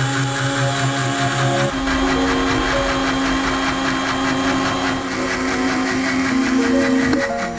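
Electric blender running continuously, grinding millet, canary seeds, a chili pepper, mango and Cerelac cereal with water into a bird hand-feeding formula.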